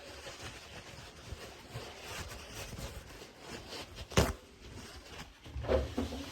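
Paper towel rubbing compound over a fiberglass tub surface by hand, a soft scrubbing hiss, with one sharp knock about four seconds in.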